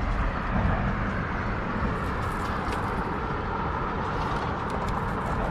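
Steady hiss and rumble of traffic crossing a highway bridge, with a few faint ticks.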